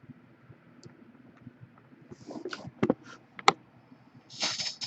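Computer mouse and keyboard being worked: a handful of sharp clicks and taps between about two and three and a half seconds in, then a short noisy rustle near the end.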